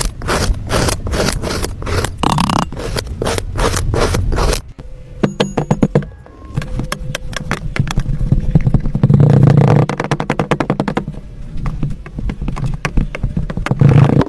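Crunchy kinetic sand being cut: a quick run of crisp crunches for the first four or five seconds, then denser, more continuous crunching and scraping.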